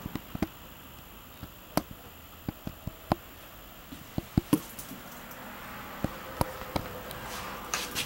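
Scattered sharp clicks and light taps, about a dozen at irregular intervals, over a low steady hiss.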